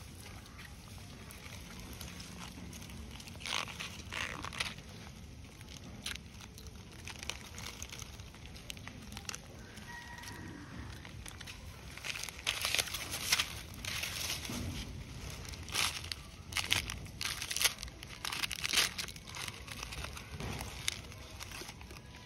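Plastic snack wrapper crinkling in irregular bursts as a macaque handles it: a short burst about four seconds in, then a longer, denser stretch of crinkling through the second half.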